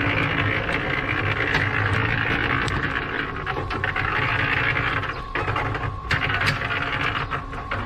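A 120-litre electric concrete mixer running steadily, its drum turning while a wet mix of boiled meat and bread tumbles inside and pours out, with a constant motor hum and many scattered clicks.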